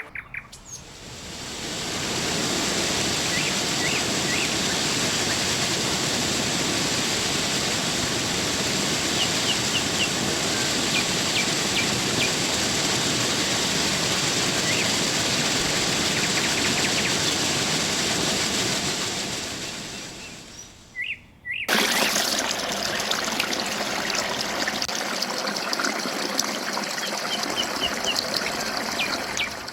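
Steady rush of a waterfall, with small birds chirping over it. The water sound fades out about two-thirds of the way through, and a second stretch of rushing water with bird chirps cuts in.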